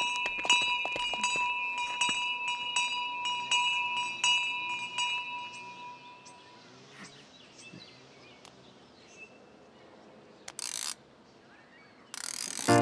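Hand bell rung rapidly over and over, a fast run of strikes over a steady ringing, which fades out about six seconds in. Near the end come a brief rushing noise and then a louder rustling, scraping noise.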